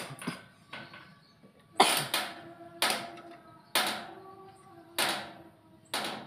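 Scissor jack being cranked by hand under a home-built buggy's front axle: a sharp metallic clank about once a second, each ringing briefly, five in all.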